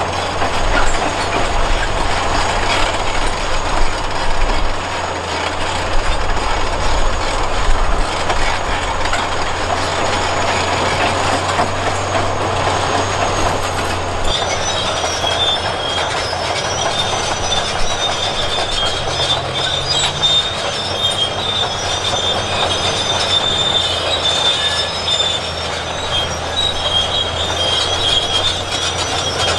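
Crawler bulldozer working, its diesel engine running under a dense clatter of steel tracks. About halfway through, a high, steady squeal from the track undercarriage joins in.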